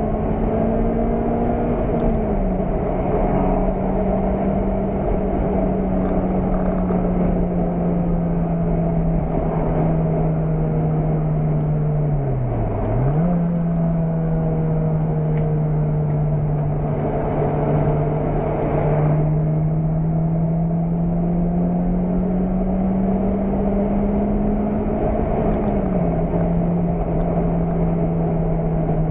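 Car engine heard from inside the cabin while lapping a race circuit, pulling under load with its note slowly climbing. It drops sharply at a gear change about two seconds in and again near the end, and dips briefly and recovers near the middle as the car slows for a corner. Road and wind noise run underneath.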